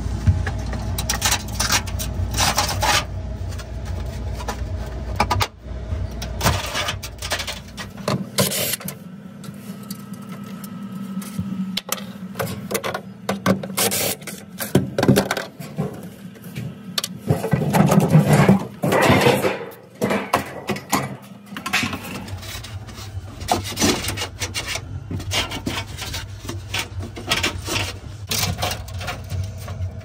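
Irregular scraping, rubbing and clicking from hands working on a refrigerator's evaporator coil, defrost heater and its wiring. A steady low hum runs underneath at first, stops about eight seconds in and comes back about eight seconds before the end.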